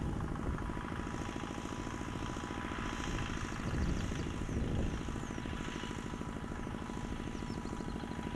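Homemade mini tractor's engine running steadily with a fast, even pulse, swelling briefly about four seconds in.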